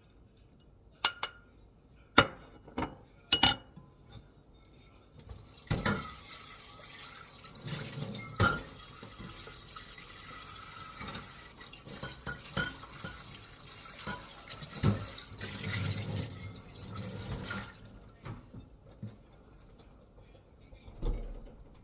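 A few sharp clinks of dishes, then a kitchen tap runs into the sink for about twelve seconds, with knocks of things being handled under the water.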